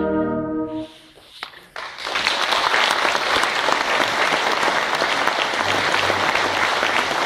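A concert band's final held chord of brass and woodwinds cuts off about a second in. After a short hush with a few scattered claps, the audience breaks into steady applause.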